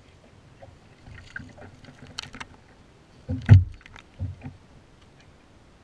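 Knocks and thumps as a hooked striped bass is swung out of the water beside the boat: a few light clicks, then one loud knock with a low thump about three and a half seconds in, and two softer thumps just after.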